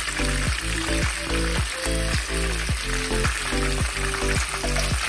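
Pieces of floured pork stomach deep-frying in hot oil: a steady, dense crackling sizzle as they reach golden brown. Background music with a regular beat plays under it.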